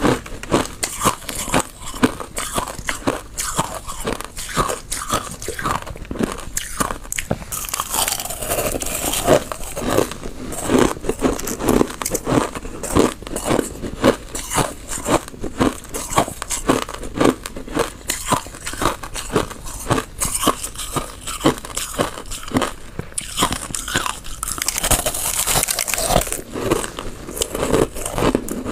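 Mouthfuls of crushed ice being chewed close to the microphone: dense, rapid crunching, several crunches a second.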